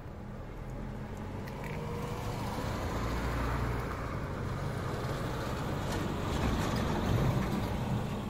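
A motor vehicle going past: a steady engine hum with tyre and road noise that builds gradually and is loudest near the end.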